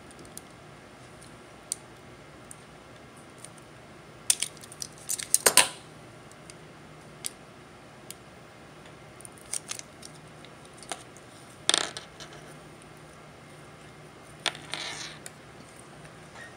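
A handful of light clicks and taps from small electronic parts being handled on a tabletop, as the BrightSign WS103 wifi card and its antenna lead are picked up and fitted onto the player's circuit board. The loudest knock comes about five and a half seconds in, and a brief rustle comes near the end.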